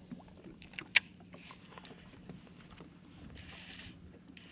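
Handling of a baitcasting rod and reel on a bass boat's deck: scattered light clicks, one sharp loud click about a second in, and a short hiss near the end, over a steady low hum.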